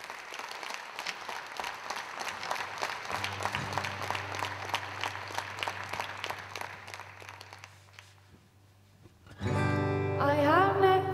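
Audience applauding, the clapping dying away after about seven seconds. About nine seconds in, two acoustic guitars start playing and a woman begins to sing.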